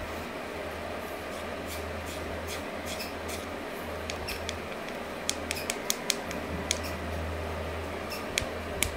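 Scattered small sharp clicks and taps from hands handling a small black stone and a small object against a palm and forearm, most of them from about five seconds in, over a steady low hum.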